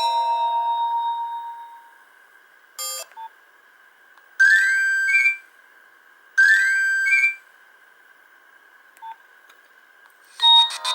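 Nokia 1110i phone ringtones made of simple electronic beeps. The last note of one tune fades out, then a short beep sounds. Two identical short signals follow about two seconds apart, each a quick rising run of notes ending on a higher note, and a new beeping tune starts near the end.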